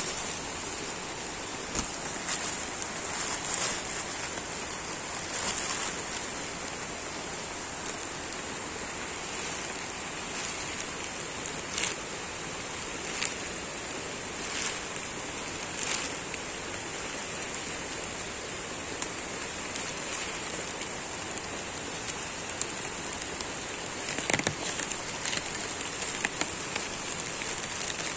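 Steady rain falling on forest foliage and wet ground, with scattered single drops tapping close by. A steady high-pitched hiss sits over the rain.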